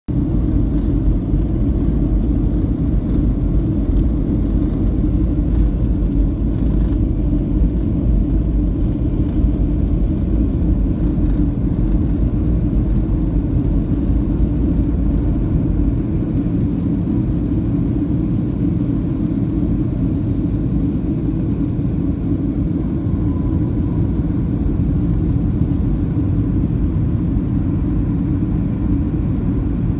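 Steady low rumble of a jet airliner's cabin noise, heard from a window seat during the descent to land.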